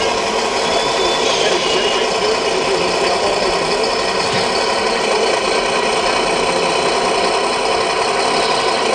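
Radio-controlled model tractor driving slowly, with a steady rattling mechanical hum from its drive.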